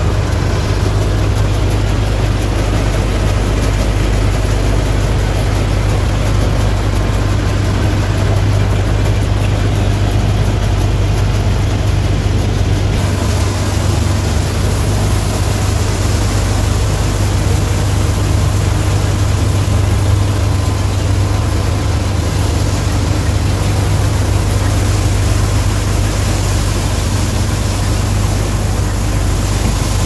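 Compact Prime combine harvester running under load while cutting and threshing soybeans: a loud, steady drone of engine and threshing mechanism with a strong low hum.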